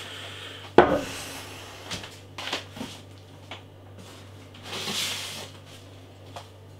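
Beer bottles and their cardboard shipping box being handled: one sharp knock about a second in, a few lighter clicks and knocks after it, and a brief rustle of packing about five seconds in.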